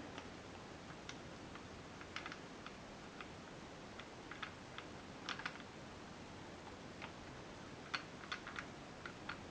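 Scattered light clicks and taps at an irregular pace, some in quick pairs or triplets, over a faint steady hiss.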